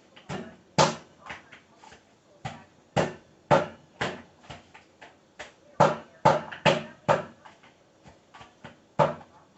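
Soaked almonds being pounded in a bowl: a string of sharp, irregular knocks, some coming in quick runs of two or three, a few much louder than the rest.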